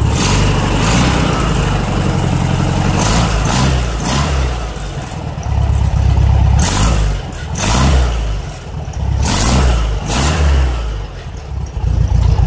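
Vintage VW Beetle's air-cooled flat-four engine running through its stock pea-shooter tailpipes, blipped up from idle several times and dropping back between revs.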